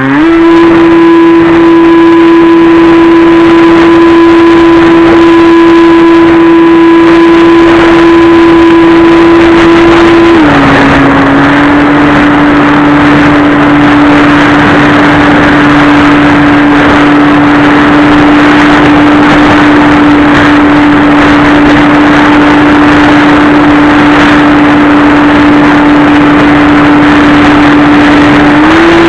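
Electric motor and pusher propeller of a Multiplex Easy Star II RC glider running at high throttle, a loud steady whine. It spools up quickly at the start, settles to a slightly lower pitch about ten seconds in, and climbs back up near the end.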